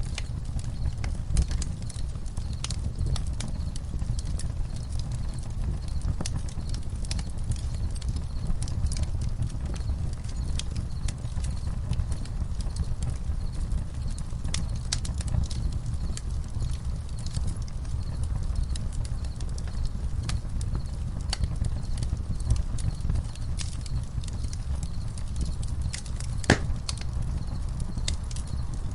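Campfire crackling: frequent small sharp pops and snaps, with one louder pop near the end, over a steady low rumble. Crickets chirp faintly in the background.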